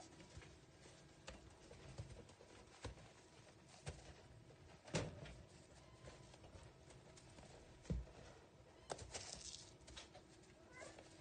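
Near silence with a scatter of faint taps and light knocks a second or so apart, the sharpest about five seconds in and a dull low thump about eight seconds in, over a faint steady hum.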